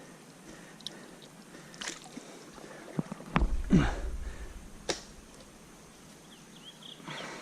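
Creek water sloshing with a few small, scattered splashes, and a brief low rumble a little over three seconds in.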